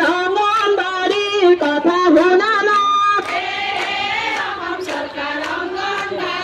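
Women's voices singing a song together in unison, with sharp regular beats. About three seconds in, the singing briefly breaks and a fuller group of voices carries on.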